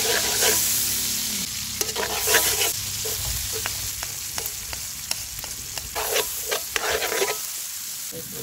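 Chopped onion, garlic and vegetables sizzling in hot oil in a wok, with a steady hiss. A metal spatula scrapes and clacks against the wok in short strokes, in bursts about two seconds in and again around six to seven seconds in.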